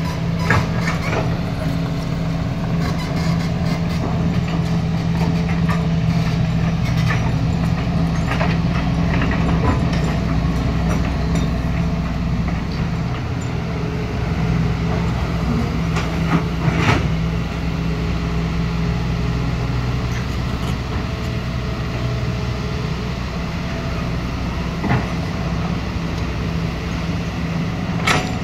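Kobelco hydraulic excavator's diesel engine running steadily under working load. Scattered knocks and scrapes come from its bucket digging rock and soil, the loudest about 17 seconds in and just before the end.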